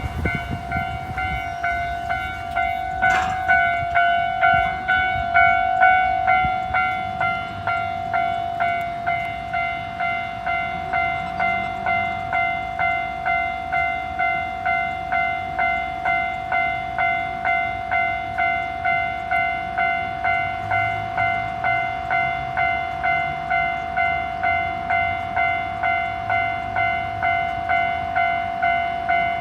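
Japanese level crossing's electronic warning bell ringing in an even, steady rhythm of about one and a half strikes a second, each strike a bright ringing tone.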